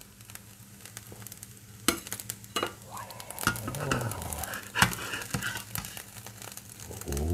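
A metal spatula scraping and scooping egg fried rice around a nonstick frying pan, with a light sizzle of the crisping rice. Several sharp clicks of the spatula striking the pan come in the second half.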